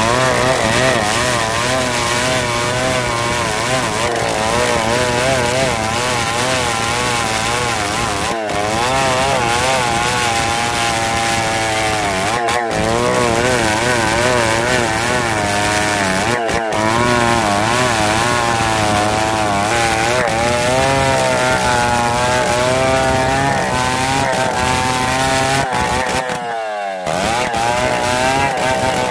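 New West 707 two-stroke chainsaw running at high revs while ripping a log lengthwise, its engine pitch wavering up and down as the chain bites and frees in the cut. There are three momentary breaks in the sound. Near the end the engine speed drops sharply, then revs back up.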